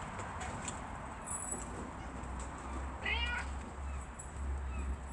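One short mewing animal call about three seconds in, over a steady low rumble.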